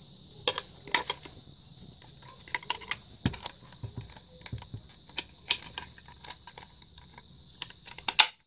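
Irregular light clicks and knocks of plastic parts being handled and fitted together on the housing of a Mondial Black Gold hot air brush under repair, with a louder click near the end, over a steady hiss.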